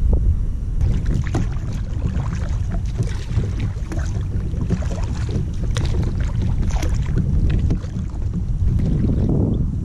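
A double-bladed paddle dipping and splashing in the water, stroke after stroke, as an inflatable kayak is paddled. The splashing starts about a second in, over a steady rumble of wind on the microphone.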